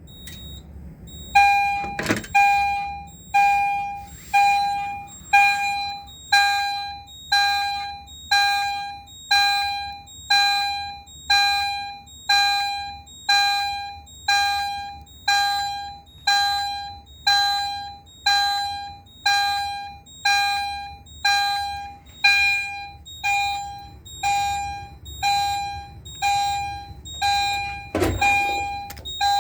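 Edwards Genesis G1RF-CVM chime strobe sounding its continuous chime pulse in alarm: a steady run of ringing electronic chime strikes, a little under two a second, each fading quickly. It starts about a second in. A sharp click comes just after it starts, and a low thump near the end.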